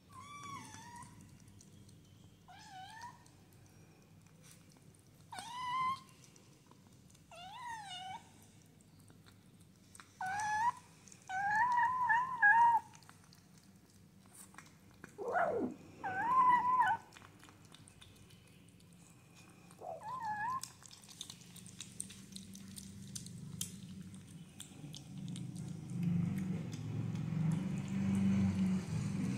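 Kittens meowing in short, high, wavering calls, about a dozen spread apart, with a quick run of several together around twelve seconds in. A low, noisy rumble builds near the end.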